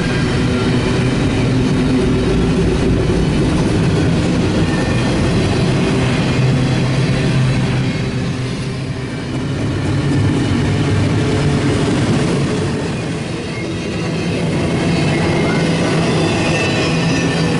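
A double-stack intermodal freight train rolling steadily past, its cars' wheels rumbling along the rails.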